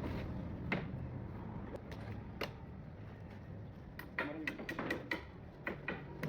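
Scattered sharp knocks and clicks over a low steady hum. The knocks come quickly one after another from about four seconds in.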